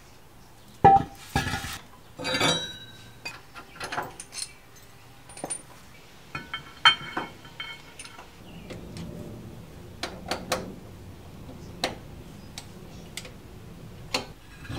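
Metal clanks and clinks from a steel wheel being taken off the studs and the new brake rotor being handled on the rear hub: one sharp clank about a second in, a few more in the next two seconds, then scattered lighter clinks and taps.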